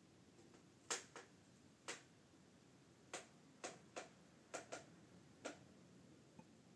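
Near silence broken by about ten faint, irregular clicks: handling noise from a handheld camera being moved in close.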